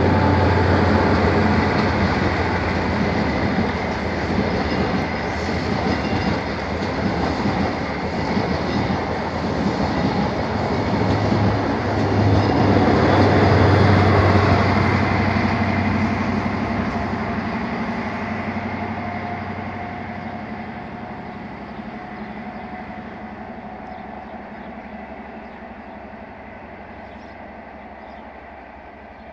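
Intercity 125 High Speed Train with Class 43 diesel power cars running past at speed: the engine's low hum and the wheels on the rails grow loudest about halfway through, then fade steadily as the train moves away.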